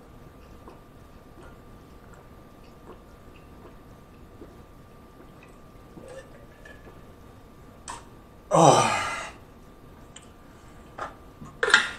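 A man gulping water from a bottle, with faint swallowing clicks, then a loud voiced 'ahh' exhale after the drink at about eight and a half seconds, falling in pitch. Near the end comes a few sharp clinks of the water bottle.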